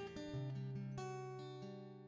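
Background music: acoustic guitar plucking its last few notes, the final chord ringing on and fading away.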